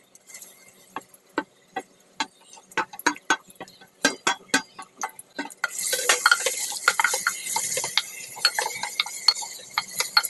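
Sliced onions being stirred in hot oil in a pressure cooker: irregular knocks and scrapes of the spoon against the cooker, joined about six seconds in by a loud, steady sizzle as the onions fry.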